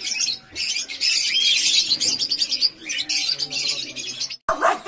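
Many small caged birds chirping and twittering together in a dense, continuous chorus, which cuts off abruptly about four and a half seconds in.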